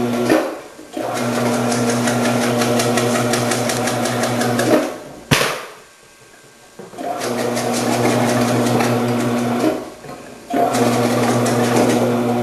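Omcan HLC 300 vegetable processor's electric motor running while slicing peppers. It runs in stretches of a few seconds, stopping and restarting three times, with a sharp click about five seconds in.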